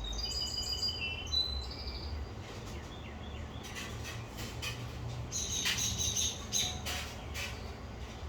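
Small songbirds chirping: a few short, high whistled notes in the first two seconds, then a run of rapid, sharp chattering chips in the middle, over a low steady background rumble.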